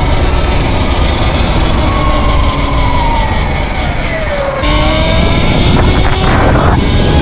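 Sur-Ron electric dirt bike under way, its drivetrain whining over heavy wind rush. The whine falls in pitch as the bike slows over a couple of seconds, then rises again as it speeds back up, about halfway through.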